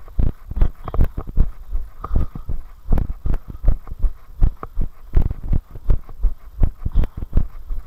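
A runner's footfalls at a steady running pace, heard as dull thuds about three a second as each stride jolts a body-worn camera.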